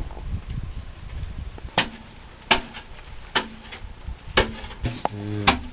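A series of sharp knocks, about one a second, over a low rumble in the first second.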